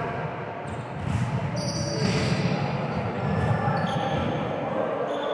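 Volleyballs being struck and bouncing on an indoor court, over a continuous din of play in the gym.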